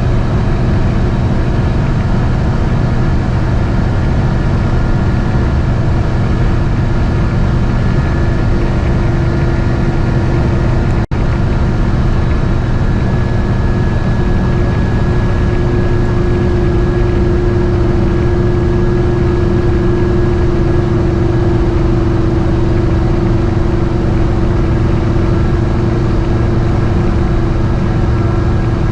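GMC motorhome's engine and road noise heard from inside the cabin while driving: a steady, loud drone with a brief break about eleven seconds in.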